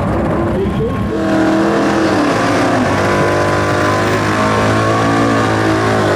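Drag-racing muscle car engines running. Their pitch shifts up and down for a couple of seconds, then holds steady.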